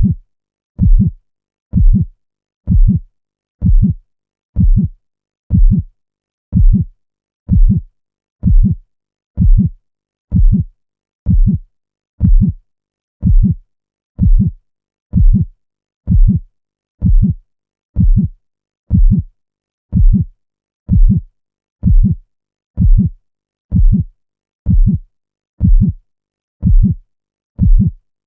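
Human heartbeat, loud and steady at about one beat a second, each beat a low thud with silence in between.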